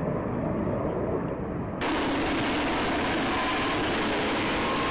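Distant jet engine rumbling, then after an abrupt cut about two seconds in, the steady, loud noise of a nearby F-35 fighter's jet engine with a faint whine.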